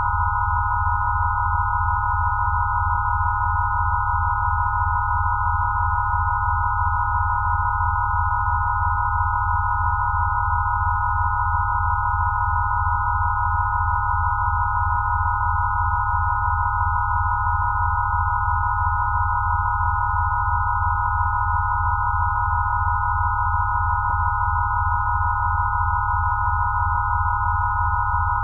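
Synthesised healing-frequency tones: a cluster of steady pure tones around 1 kHz held without change over a low tone that pulses evenly, a few beats a second.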